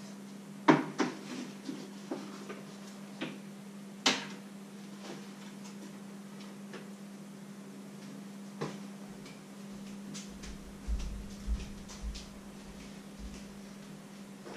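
Kitchen handling noises: a run of sharp knocks and clicks from pans and utensils being moved, the loudest about four seconds in, then a few softer thuds with low rumbling near the end, over a steady low hum.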